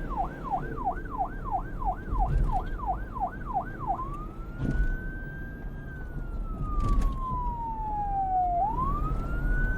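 Police car's electronic siren on a fast yelp, about three falling sweeps a second, switching about four seconds in to a slow wail that rises, falls and rises again before cutting off suddenly. A low rumble runs underneath.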